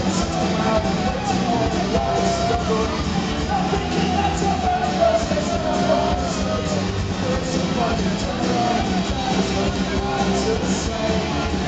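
Full rock band playing live through a club PA: electric and acoustic guitars, drums and keyboard, with a wavering melody line over a steady beat, recorded from within the crowd.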